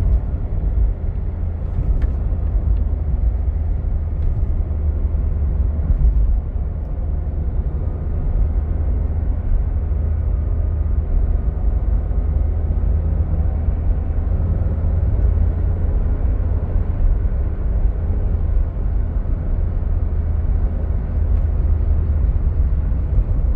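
Toyota Avanza being driven: a steady, heavy low rumble of engine and road noise with no clear rise in revs, and a few faint clicks.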